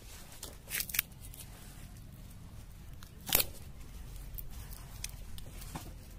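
A few short, sharp clicks and scrapes over a low steady hum, the loudest a little past three seconds in.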